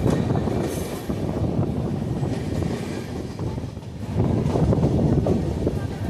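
LHB coaches of a passenger train rolling past on a curve: a steady rumble and grinding of wheels on the rails, with irregular small knocks, easing briefly about four seconds in and then swelling again.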